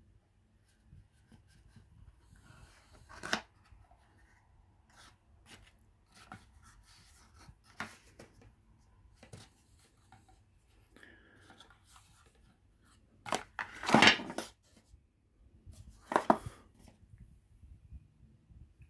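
Knife blade cutting and scraping open a cardboard perfume box, then the box and the bottle's plastic wrapping being handled as the bottle comes out. It is a run of scattered scrapes, clicks and rustles, with the loudest bursts about two-thirds of the way through and again shortly after.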